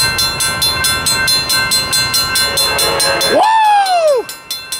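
Railroad grade-crossing warning bells ringing in rapid, even strokes, about four or five a second. Near the end a loud whoop rises and falls in pitch over about a second.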